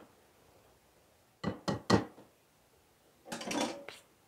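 A hand tapping a wire mesh sieve three times in quick succession to shake flour through, then a longer rattling clatter of the sieve near the end.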